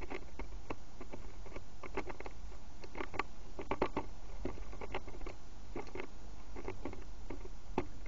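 A small garden bird pecking at seed on a feeder right beside the camera: irregular light taps and cracks, often in quick clusters of two or three.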